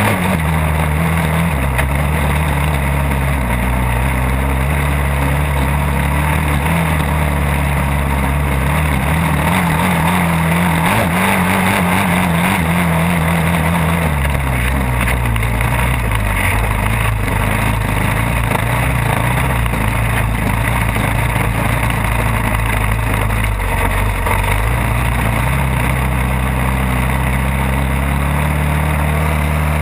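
ATV engine running hard at trail speed, its pitch dropping about halfway through as it eases off and climbing again near the end, with a steady rush of wind and ground noise.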